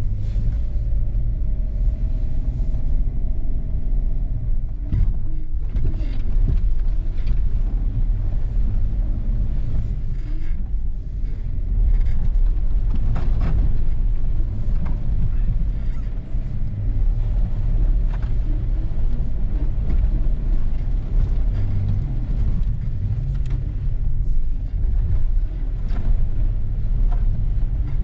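A 4x4 vehicle driving off pavement: a steady low engine and drivetrain rumble, with scattered knocks and rattles from the rough track.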